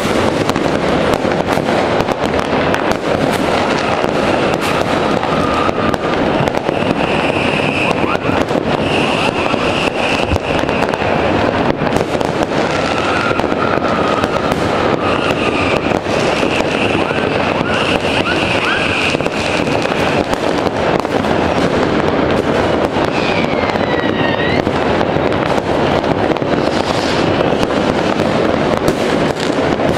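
Many fireworks and firecrackers go off all around in a dense, continuous crackle of bangs. High whistles rise above it several times, and a couple of falling whistles come about three quarters of the way through.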